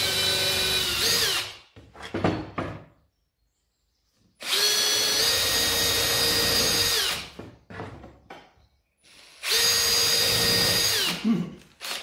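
Cordless drill boring a pilot hole through two layers of MDF in three runs with a steady motor whine. The first run ends about a second in, the second runs from about four to seven seconds, and the third from about nine and a half to eleven seconds. Each run winds down with a falling whine, and light clicks and knocks fall between the runs.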